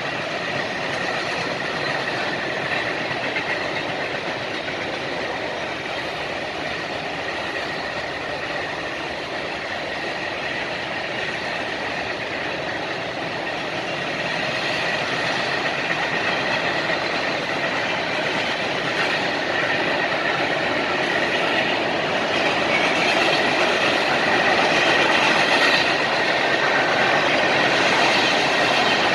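Mixed freight train cars rolling past, a steady rumble and rattle of steel wheels on the rails, growing louder in the second half.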